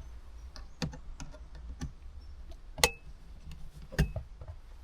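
Scattered light clicks and taps, about five, from handling a small festoon bulb and its sun-visor light housing. The sharpest click comes a little before three seconds in, over a faint steady low hum.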